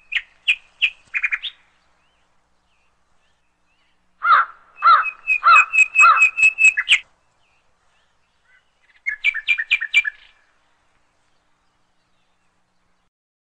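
Bird calls in three short runs of quick, repeated chirps, each run followed by a few seconds of silence.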